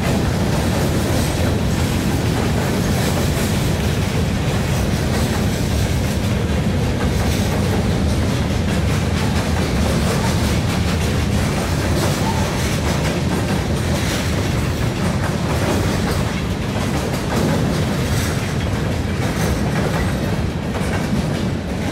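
Freight train cars rolling past at close range: a steady rumble of steel wheels on rail, with clicks as the wheels cross the rail joints. It fades as the last car goes by near the end.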